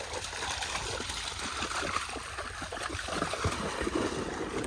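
Dogs splashing through a shallow muddy ditch, their paws churning the water in quick, irregular splashes.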